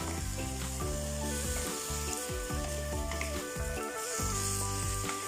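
Food sizzling as it is sautéed in a hot pan, with background music playing over it.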